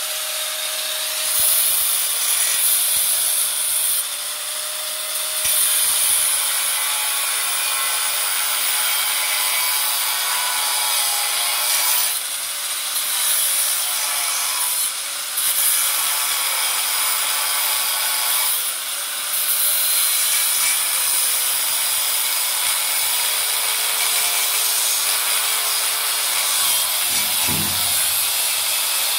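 Electric angle grinder with a thin cut-off disc cutting into the steel blades on a harvester's auger shaft: a steady high grinding hiss that grows louder in spells as the disc bites into the metal.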